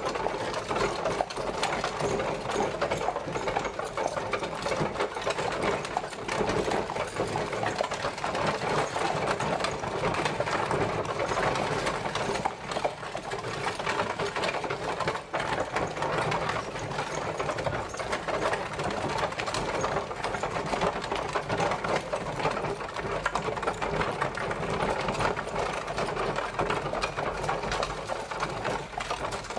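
Horse-drawn carriage on the move: a steady, dense rattle of wheels and carriage body jolting over a rough road.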